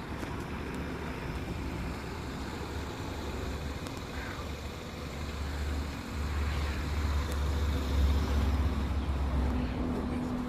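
Road traffic passing: a low rumble that grows louder about six seconds in and eases near the end.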